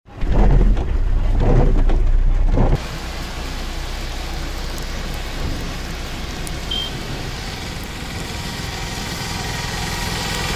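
Heavy rain falling steadily on a wet road, an even hiss. For about the first three seconds a louder low rumble comes before it; then the sound switches abruptly to the rain.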